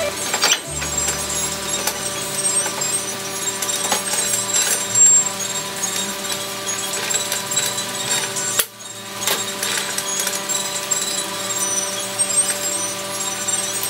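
Scattered metallic knocks and clinks from handling the rear wheel and axle parts of a scooter as the wheel is refitted onto its gearbox shaft, the loudest knock about five seconds in, over a steady background tone.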